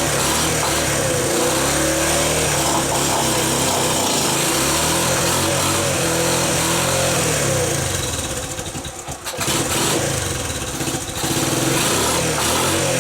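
Honda CT110 postie bike's small single-cylinder engine running on choke with a pod filter fitted, its speed wavering; about nine seconds in it nearly dies, then picks back up. It does not idle cleanly, which the owner puts down to the carburettor needing adjustment.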